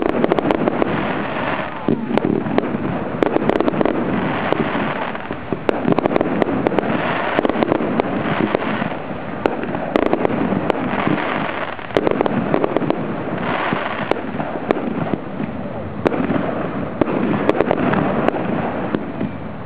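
Fireworks display: aerial shells bursting in quick succession, with dense crackling between the bangs.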